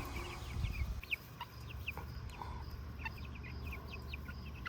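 A flock of month-old chicks peeping: many short, high, falling cheeps scattered through, over a low steady rumble.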